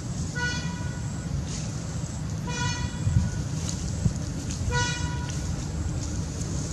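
A horn, most likely a vehicle horn, sounding three times. Each toot lasts about a second at a steady pitch, and the toots come about two seconds apart. A low wind rumble on the microphone runs underneath.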